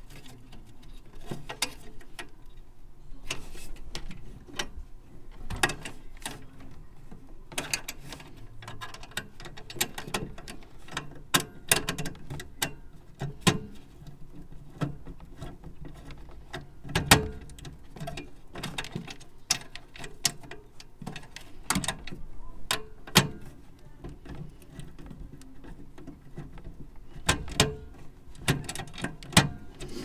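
Scattered light clicks and taps, some sharp, from hands handling the flame sensor and its wires against the sheet-metal burner bracket of a Goodman/Amana gas furnace.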